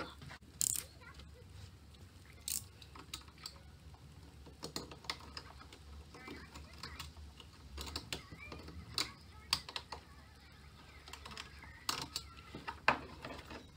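Sporadic light clicks and taps of hand tools on a plastic panel, a few sharper than the rest, while a freshly drilled hole in the plastic is cleaned up with a round file and a utility knife.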